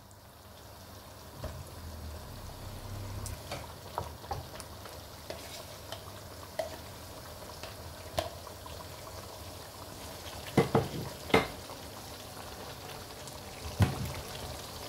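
Chicken karahi in yogurt gravy sizzling over a high flame in a non-stick pan, stirred with a wooden spoon. The spoon knocks against the pan now and then, loudest a few times in the second half.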